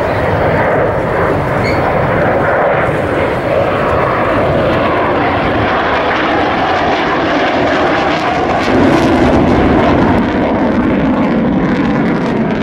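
Fixed-wing aircraft engine running steadily in flight, its sound dropping lower about nine seconds in.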